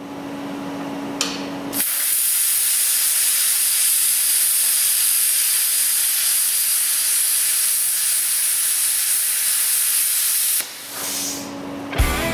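Electric arc welding on a steel truck frame: a steady sizzling hiss of the arc that starts about two seconds in, after a quieter hum, and stops shortly before the end.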